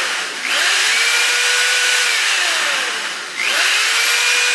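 Ryobi corded electric drill running free with no load, powered from a portable battery generator's outlet. It spins up to a steady whine just after the start, winds down, then spins up again about three and a half seconds in.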